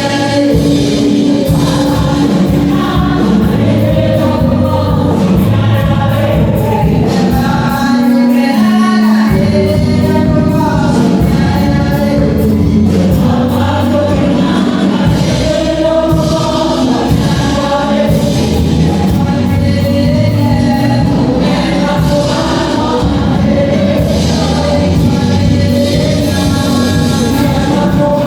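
Gospel music: a choir singing with instrumental backing and a steady beat.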